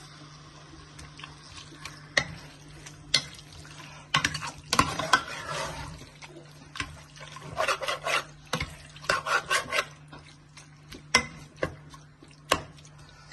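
A spoon stirring chicken bhuna in a cooking pot: irregular clinks, knocks and scrapes of the utensil against the pot, in bunches about 4 to 6 seconds in and again around 8 to 9 seconds in.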